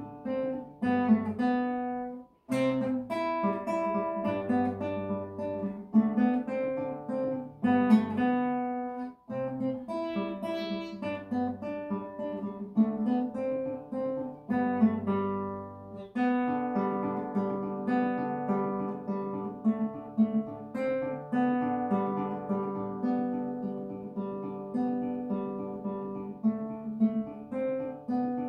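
Nylon-string classical guitar played solo, a fingerpicked melody over bass notes in a folk-song arrangement, with a brief pause about two seconds in.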